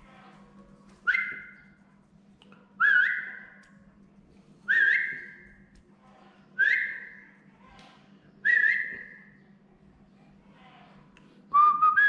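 A whistled call: a short note slides up and steps to a higher held pitch, repeated five times about every two seconds. A longer rising phrase with two steps follows near the end.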